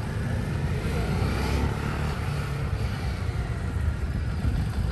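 Motorcycle engines running at low speed as the bikes ride past, a steady low engine sound with no break.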